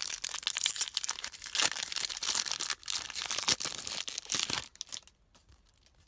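A trading-card pack wrapper being torn open and crinkled by hand, a dense crackling that stops about five seconds in.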